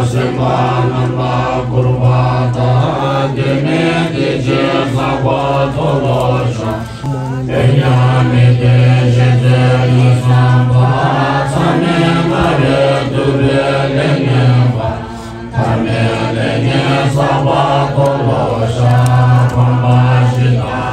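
A congregation chanting Tibetan Buddhist prayers together from prayer books, many voices recited on one low, steady pitch, with two short breaks.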